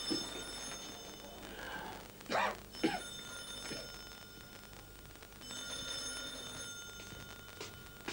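Old desk telephone's bell ringing in repeated rings of about a second, with pauses between them, as an incoming call. A couple of short knocks sound between the rings.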